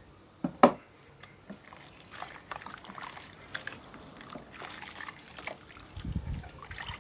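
Two sharp knocks about half a second in, then the wet, crackling squish of hands lathering a bar of homemade clay soap with water, the rapid small clicks of suds forming and popping. Near the end there is a low rumble of handling.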